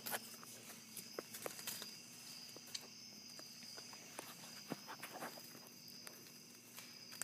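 Faint, scattered ticks and taps over a steady faint high whine and a low hum.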